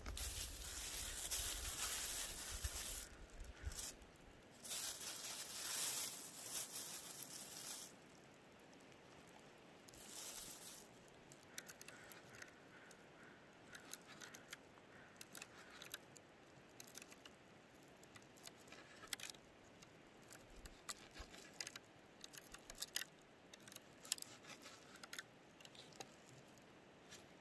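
A knife slicing raw black bear meat and fat on a wooden plank, the blade clicking and tapping against the wood in many quick, irregular strokes. The first several seconds are dominated by a loud rustling hiss with a low rumble under it at the very start.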